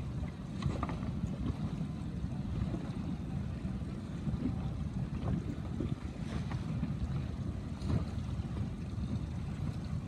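Wind noise on the microphone over choppy open water, a steady low buffeting with water lapping and a few faint taps.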